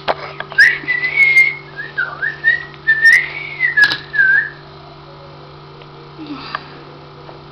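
A person whistling a short, wandering tune for about four seconds, the pitch gliding up and down, with a few sharp clicks around it.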